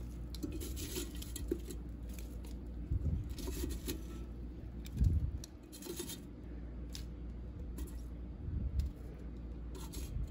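Kitchen tongs clicking and scraping against a Ninja Foodi Grill's perforated air-crisp basket as roasted potato wedges are picked out, with a few dull knocks from handling the pot.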